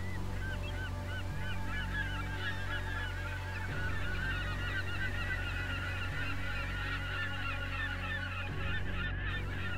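A large flock of birds calling over one another: many short calls that rise and fall in pitch, with no break. A steady low hum runs underneath.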